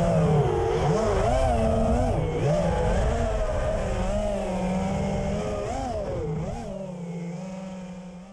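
FPV quadcopter's motors and T-Motor 5143 propellers whining, the pitch rising and falling with the throttle. The sound fades out near the end.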